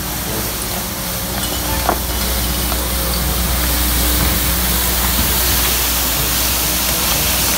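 Compact street sweeper running, a steady hiss over a low engine hum as its rotating side brushes sweep litter off paving stones.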